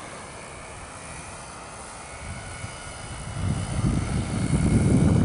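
Large drone's motors and propellers droning at a distance, with a faint steady whine. About three and a half seconds in, a gusty low rumble, wind buffeting the microphone, swells up and covers it.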